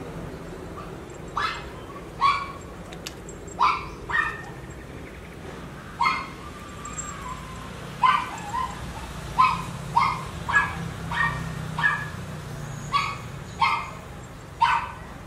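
A dog yipping: about fifteen short, high-pitched barks, spaced unevenly and some in quick pairs.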